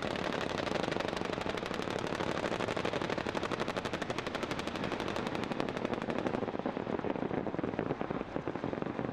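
Sustained automatic machine-gun fire, a rapid unbroken stream of shots at many rounds a second. It turns duller about two-thirds of the way through.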